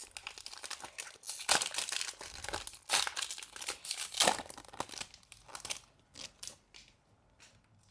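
Trading card pack's foil wrapper being torn open and crinkled, with a run of irregular crackles and a few sharper crunches, thinning to a few faint clicks near the end.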